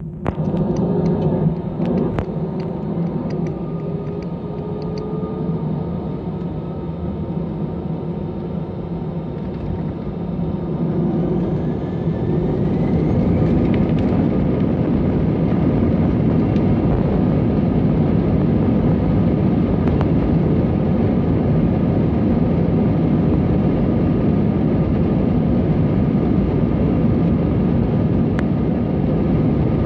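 Airbus A320 jet engines heard from inside the cabin during take-off. A steady low rumble swells about a third of the way in as the engines spool up with a rising whine, then holds loud and steady with runway rumble through the take-off roll.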